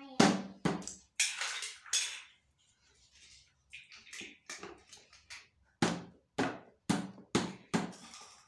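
A string of short, sharp knocks and clatters of hard plastic as a pink plastic toy kitchen set is handled and patted, with a brief lull about two and a half seconds in and then quicker knocks toward the end.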